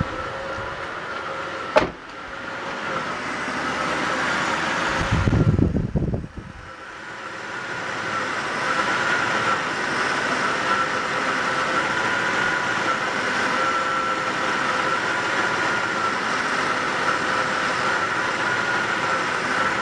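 1995 Jeep Grand Cherokee engine idling with a steady whine in it, on an idle the owner calls rough. A sharp click comes about two seconds in, and a louder low rumble passes through the middle before the sound settles steady again.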